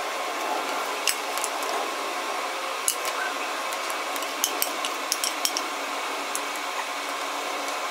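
A metal spoon scraping thick chocolate mixture out of a bowl into a mini chocolate fountain's metal basin, with sharp clinks of spoon on bowl and basin about a second in, near three seconds, and in a quick run a little past the middle. A steady hum sits underneath.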